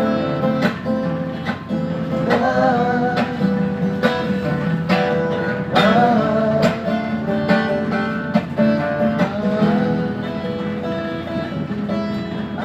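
Acoustic guitar playing the instrumental close of a song, with rhythmic strummed chords and ringing notes.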